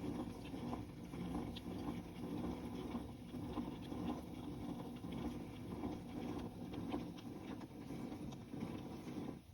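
Rice-popping machine running: a steady low hum with faint, irregular light ticks, and no pop.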